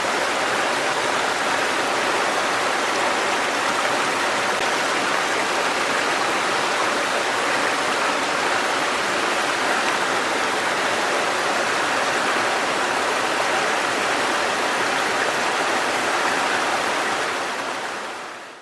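Fast-flowing stream with a strong current, a steady rushing of water that fades out near the end.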